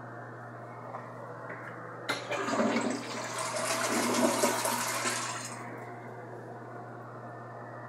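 Tank toilet flushing: a sudden rush of water starts about two seconds in, runs for about three seconds, then fades away.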